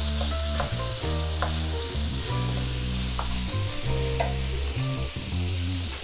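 Ground beef and pork sausage sizzling as it browns in a pan, with a spatula chopping and stirring it and knocking and scraping against the pan. Background music plays under it.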